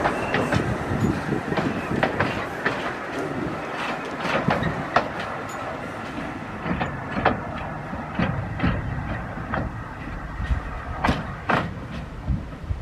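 Narrow-gauge railway carriages rolling past, their wheels clicking and knocking irregularly over rail joints and pointwork, growing a little fainter as the train draws away.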